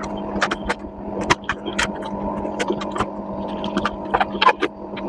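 Many sharp plastic clicks and taps of wire-harness connectors being handled and plugged onto a washing machine's control board, over a steady machine hum.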